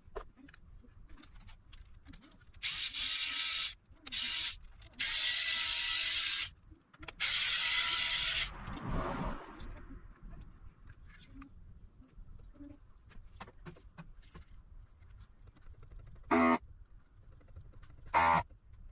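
Four loud bursts of blowing air, each a hiss with a steady whine in it. A lower rush follows and fades out about ten seconds in. Two short, sharp sounds come near the end.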